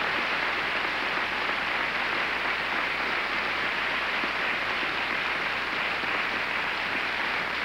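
A large audience applauding steadily, a sustained ovation.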